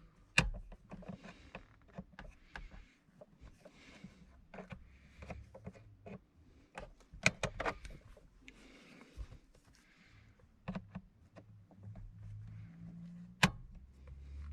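Scattered small clicks and plastic taps with light rustling as bulb holders are twisted out of an Audi 80 instrument cluster, with sharper knocks just after the start and near the end.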